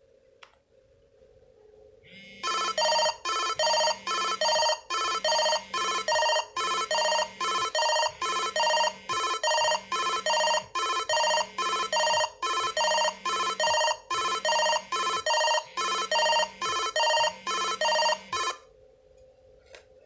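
BlackBerry Q10 smartphone ringtone sounding for an incoming call: a repeating melodic pattern of short, bright notes over a recurring low bass note. It starts about two seconds in and cuts off shortly before the end, the call going unanswered.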